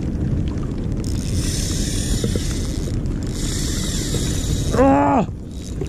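Low wind rumble on the microphone, with two spells of high hiss of about a second and a half to two seconds each. A short shout that rises and falls in pitch comes about five seconds in.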